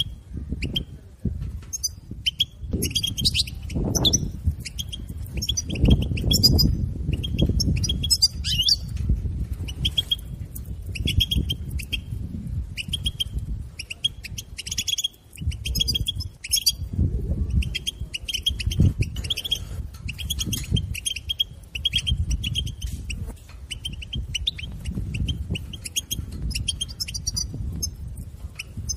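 European goldfinch chattering, the rapid twittering call-song that Maghrebi keepers call 'bitbita', in fast runs of short, high chirps with a brief pause about halfway through. Irregular low thuds and rumble sound underneath.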